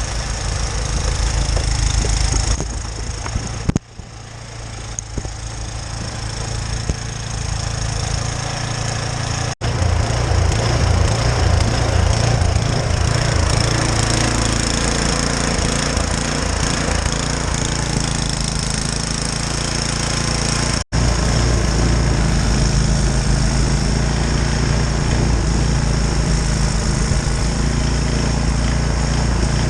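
A powered snow-clearing machine running steadily and throwing heavy wet snow, with a low, pulsing motor sound; the sound cuts out abruptly twice.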